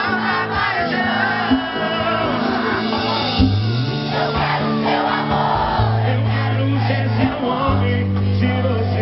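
Sertanejo song playing loudly, with a steady bass line under sung melody, and crowd voices mixed in.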